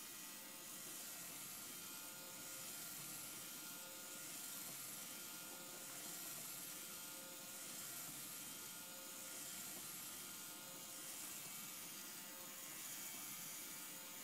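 Faint whir of a small DC motor turning plastic LEGO Technic gears, with a steady hiss under it. It swells and fades gently about every two seconds.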